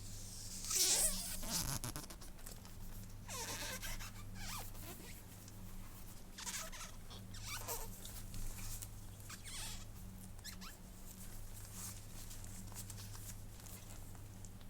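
Hands handling the phone and its packaging: several short squeaky rubs and rustles, with a steady low hum underneath.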